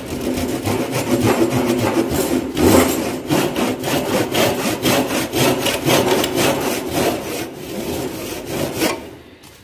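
Tenon saw cutting into a wooden piece with steady back-and-forth strokes, sawing down to the depth line for a cross lap joint. The sawing stops about nine seconds in.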